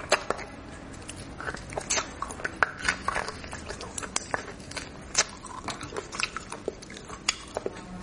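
Close-miked eating of bone marrow: irregular wet smacks and clicks of chewing.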